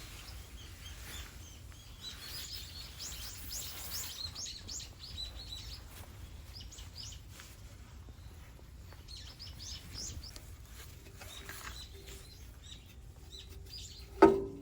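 Small birds chirping in rapid, repeated short notes over a low background hum, with a sharp knock near the end.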